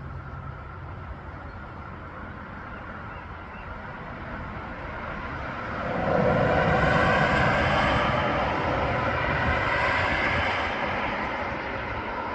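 A vehicle passing, its steady noise swelling sharply about six seconds in and easing off near the end, over a low background rumble.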